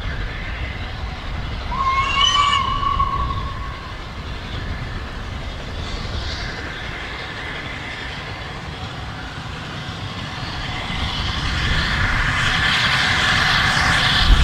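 Steam locomotive 60103 Flying Scotsman, a three-cylinder LNER A3 Pacific, running with a train of coaches over a low rumble. Its whistle sounds once, about two seconds in, for roughly two seconds. Near the end the train grows louder as it approaches.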